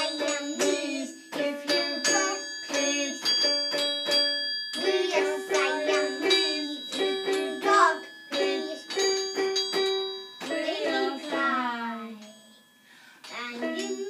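A young child singing and striking a metal triangle, over held electronic notes from a toy keyboard. Near the end the singing slides down in pitch.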